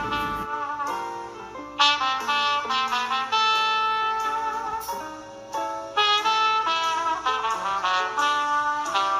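Background instrumental music with a brass lead playing held notes in phrases, a new phrase starting about two seconds in and another about six seconds in. Low room noise stops about half a second in.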